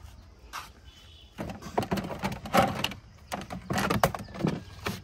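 Hard plastic toys being handled: a quick run of knocks and clatters for about three seconds, starting a second and a half in.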